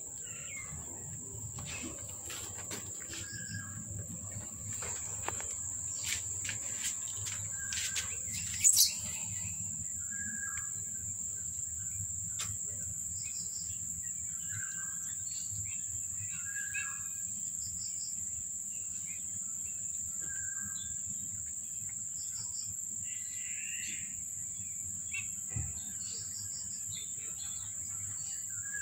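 A steady, high-pitched insect drone, with short bird chirps every couple of seconds. A few light clicks sound in the first part, and one sharp, loud click comes about nine seconds in.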